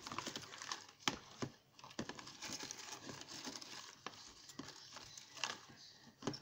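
Rustling and crinkling of paper and plastic craft supplies being handled, with a few sharp knocks and clicks as a plastic mini hot glue gun is picked up and moved: about a second in, at two seconds, and twice near the end.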